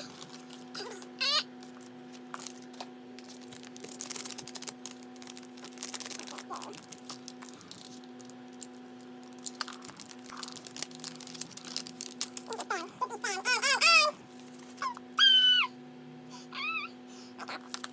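A pet whining in short, high, wavering cries, loudest in a run about two-thirds of the way through and again near the end. Between the cries come the crinkle and taps of cardboard and foil packaging being handled, over a steady low hum.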